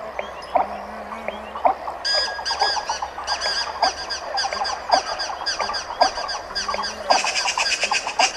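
Chorus of wild birds, many short chirps and calls overlapping. About two seconds in, a fast, high, repeated chirping joins, and it grows louder near the end.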